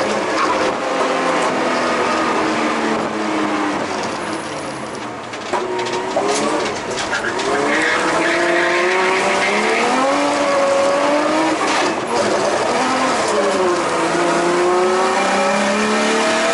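Nissan RB25DET turbocharged straight-six with twin screamer-pipe wastegates and a 3-inch straight-pipe exhaust, heard from inside the cabin while driving hard, its revs climbing and falling. The engine eases off about four to five seconds in, then pulls up again.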